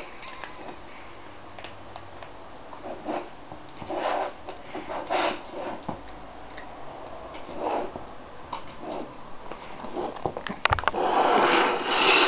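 Two cats feeding from a plastic anti-gulp slow-feeder bowl, pawing food out from between its knobs: irregular small scrapes and clicks. A couple of sharp clicks near the end, followed by a louder, longer rustle.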